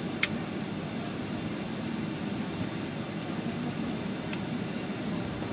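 Steady cabin noise inside a Boeing 757 taxiing at low speed: the engines at idle and the hiss of the air conditioning. There is one sharp click about a quarter second in and a couple of faint ticks later.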